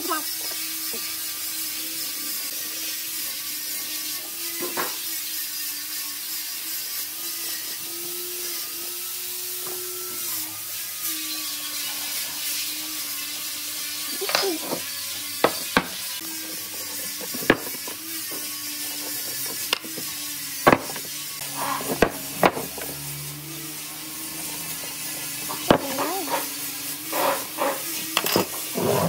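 Steady background hiss with scattered sharp taps and clicks as hand tools (a steel rule, pencil and marking blade) are set down and worked against a hardwood block and workbench, most of them in the second half.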